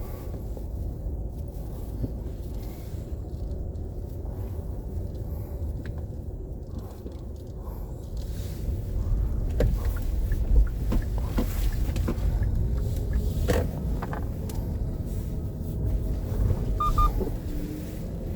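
A vehicle's low, steady rumble, growing louder about halfway through, with a few short knocks and clicks over it.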